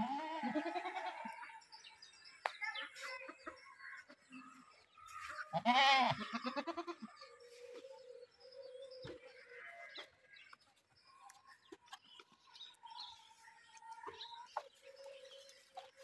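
Goats bleating: a short bleat at the start and a loud, wavering bleat about six seconds in. Chickens cluck and other birds call more faintly in between.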